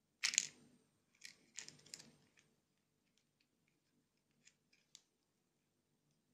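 Plastic parts of a toy flying-saucer watch clicking and scraping as the propeller disc is pressed onto its launcher: a short scrape at the start, a second one about a second later, then a few faint ticks near the end.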